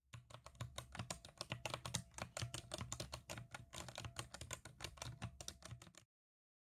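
Typing on a computer keyboard: a fast, uneven run of key clicks lasting about six seconds, then cutting off abruptly.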